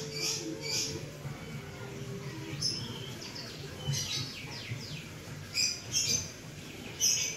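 Small birds chirping: clusters of short, high chirps, some falling in pitch, with the loudest burst near the end.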